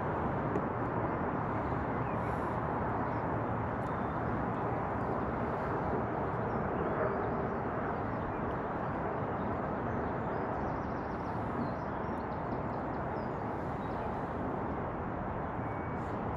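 Steady outdoor field-recording ambience: an even rushing noise with a few faint high chirps, like birds, above it.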